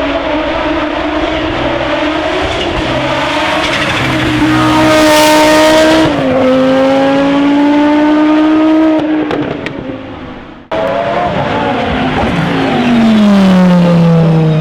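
Racing car engine accelerating hard, its pitch climbing with one upshift about six seconds in, then fading as it goes away. After a sudden cut, another racing car's engine comes in loud, its pitch falling steadily.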